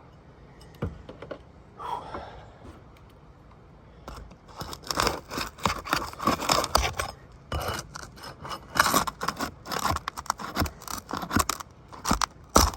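A roofing pry tool scraping and working under asphalt shingles to reach a popped nail: a few faint scrapes, then from about four and a half seconds in a fast, irregular run of scrapes and clicks.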